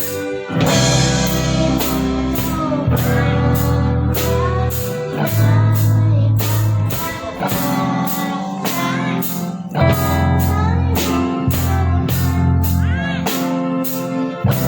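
A band playing a song with a drum kit, bass and guitar, a cymbal crash about half a second in and steady drum strokes throughout.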